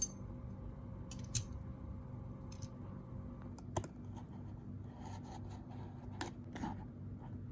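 A few separate sharp clicks and light scraping or rubbing sounds from objects being handled, over a steady low hum.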